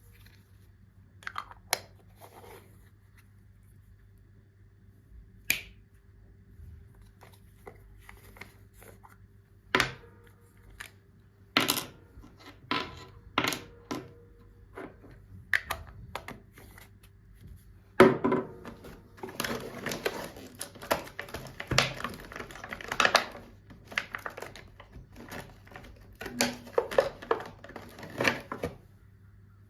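Toys and their plastic packaging being handled during an unboxing: scattered clicks and taps, then a long stretch of dense rustling and crinkling in the second half.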